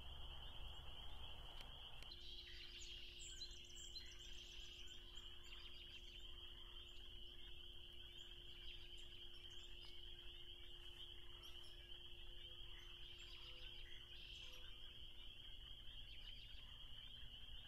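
Faint, steady chorus of spring peepers peeping as a continuous high-pitched trill, with a few bird chirps over it, a couple of seconds in and again near the end.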